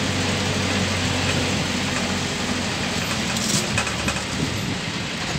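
A motor vehicle's engine running steadily as it drives along, with road noise. The engine hum eases about halfway through, and there is a short click a little after that.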